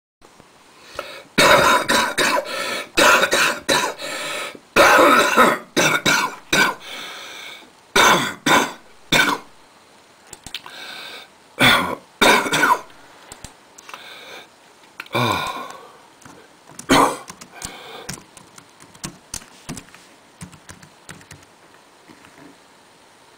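A bad cough: repeated hard coughing in fits of several coughs each, densest and loudest in the first few seconds, with more fits around the middle. It tails off into a few weaker coughs and throat clearing.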